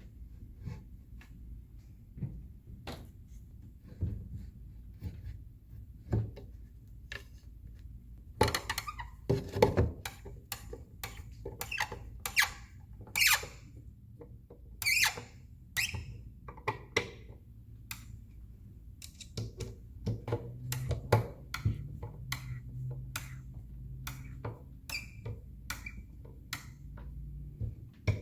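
Screws being driven into the wooden panels of a toy dollhouse, with scattered clicks, knocks and short squeaks as the parts are handled and tightened.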